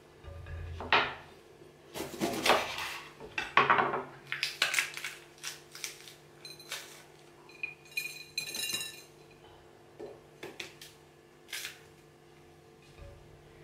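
Kitchen knife cutting bell peppers on a wooden cutting board, with scattered knocks, clinks and crisp rustles as the halves are handled and their cores and seeds are pulled out and dropped onto a ceramic plate. The sounds are busiest in the first few seconds and turn sparse after that.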